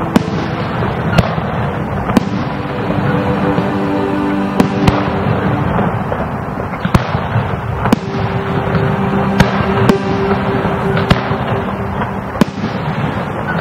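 Aerial firework shells bursting: about a dozen sharp bangs, roughly one a second, with crackling between them. Music with sustained low notes plays underneath.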